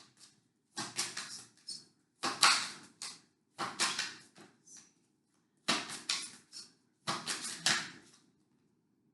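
Tarot cards being shuffled and handled: about five short bursts of rapid clicking and flicking, each under a second, with short pauses between them.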